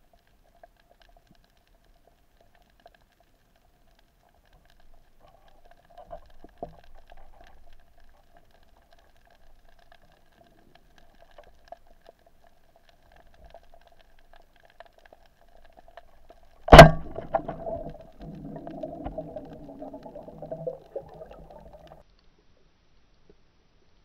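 Speargun fired underwater: a single sharp, loud crack, followed by about five seconds of lower, uneven noise.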